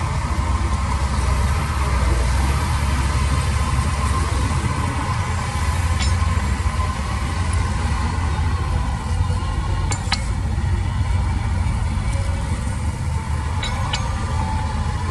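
Heavy diesel machinery running steadily with a deep, constant engine rumble. A few sharp metallic clinks cut through it, one about six seconds in, one around ten seconds, and two close together near the end.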